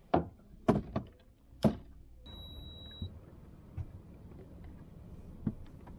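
A few sharp knocks close together, then one high electronic beep lasting under a second, over a faint steady background hiss.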